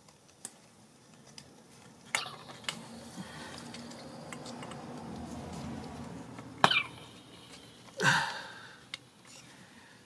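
Hand work on the fuel injector's plastic electrical connector: a string of small clicks and knocks, then a sharp snap of the clip about two thirds of the way through. A louder short burst follows near the end.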